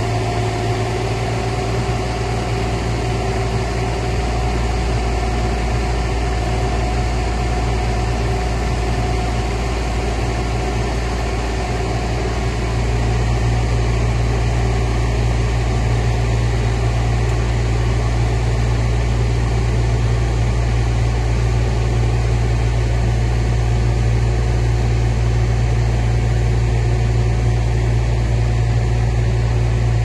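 Mini excavator's diesel engine running steadily as its boom lifts a heavy water tank off a trailer. The engine gets louder about twelve seconds in as the lift gets under way.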